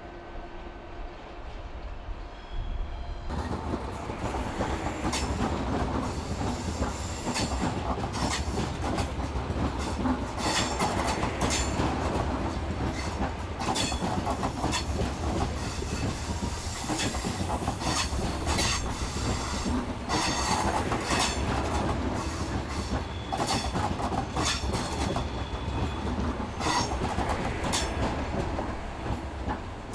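Train running on rails, getting louder about three seconds in, with irregular clicking of wheels over rail joints and points and brief high wheel squeal now and then.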